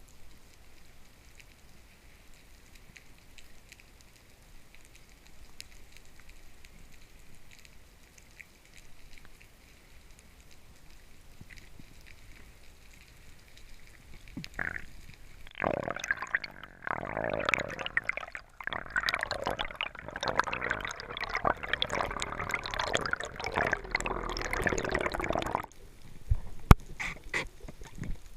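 Underwater ambience with a faint, steady crackle. About halfway, a loud stretch of gurgling, bubbling water begins; it lasts about ten seconds and cuts off abruptly, followed by a single sharp knock.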